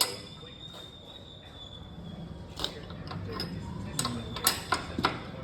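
Metal tools and motorcycle wheel parts clinking and knocking: a sharp knock at the start with a faint ringing after it, another about halfway through, and a quick run of four clinks near the end.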